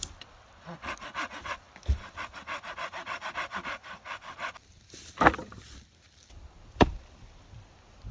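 Firewood being cut and split by hand with a Swedish Hultafors trekking axe. First comes a fast, regular run of rasping strokes on wood, about seven a second, for a few seconds. Then come two sharp, loud chops about a second and a half apart.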